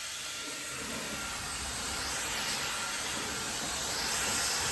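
High-speed dual-motor hair dryer running: a steady rush of air with a faint high motor whine, getting slightly louder about four seconds in.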